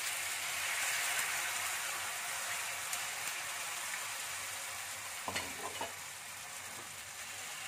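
Bánh xèo batter sizzling as it is ladled into a hot oiled frying pan over shrimp, bean sprouts and chives. The sizzle is loudest for the first couple of seconds as the batter hits the oil, then settles into a steady, slowly fading hiss, with a light knock about five seconds in.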